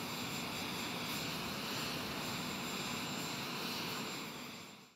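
Steady jet aircraft engine noise with a thin high whine, fading out in the last half second.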